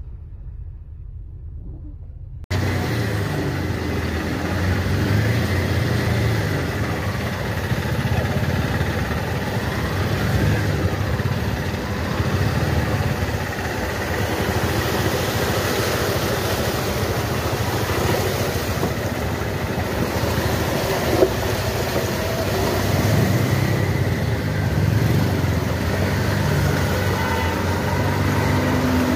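Engines of slow traffic running close by, heard from inside an auto-rickshaw: a low rumble at first, then louder after a sudden step up about two and a half seconds in. There is one short click a little past the middle.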